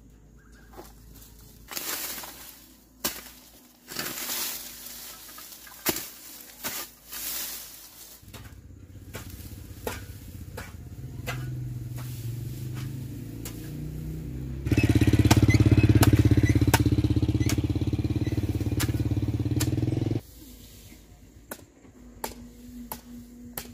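A metal hoe chopping and scraping into dry, hard soil, several separate strokes. From about eight seconds in an engine runs, growing louder and loudest for about five seconds before it stops abruptly.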